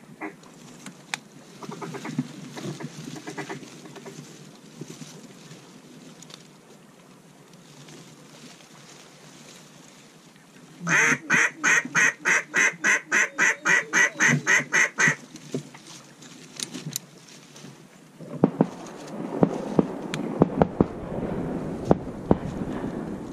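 A fast, even run of about twenty loud mallard-style duck quacks lasting about four seconds, the kind of calling used to bring ducks in to a blind. In the last few seconds there is a noisy rustle with scattered sharp clicks.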